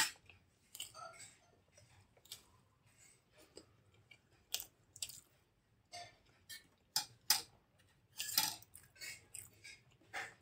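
Close-miked eating sounds: wet chewing and mouth clicks on soft idli and green coconut chutney, with a few light clicks of a plastic spoon against a ceramic bowl. The sounds are irregular and short, with a longer, louder wet sound about eight seconds in.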